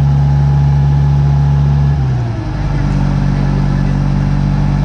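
Dump truck's diesel engine running steadily. About two seconds in, its note dips and slides down, then settles at a new steady pitch.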